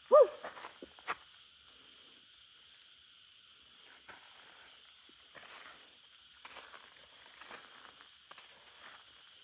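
Insects keep up a steady high-pitched chirring in grassy brush at night, with footsteps rustling through tall grass now and then. A brief loud call falling in pitch sounds right at the start, and a sharp click comes about a second in.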